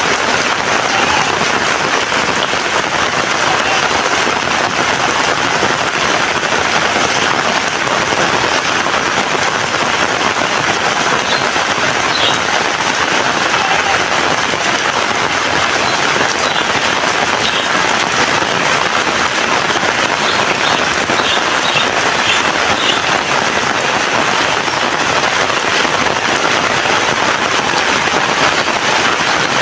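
Heavy rain falling steadily: a dense, even hiss of rain on surfaces that holds at a constant level.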